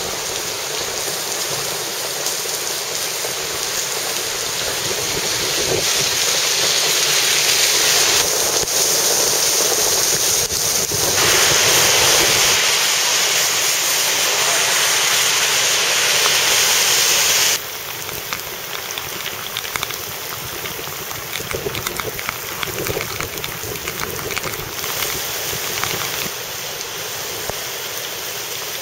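Hurricane Irene's wind and rain as a loud, steady rush, with wind buffeting the microphone. It swells over the first half, then drops suddenly about 17 seconds in to a lower, crackly rush.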